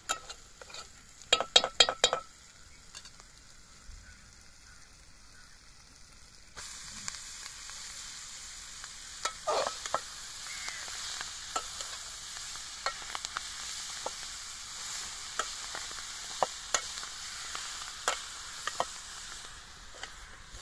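A steel ladle clinks and rings against a steel pot a few times. About six and a half seconds in, fresh fenugreek leaves go into the hot oil and start sizzling with a steady hiss, while the ladle taps and scrapes as the leaves are stirred.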